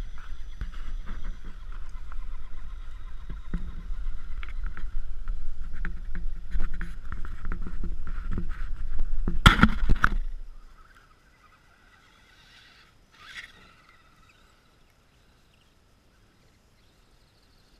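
Radio-controlled dump truck driving through snow close by: a steady motor and gear whine over a low rumble, with many rattles and knocks, and a loud clatter about ten seconds in. Then the sound cuts off sharply, leaving only a faint whine as the truck drives away.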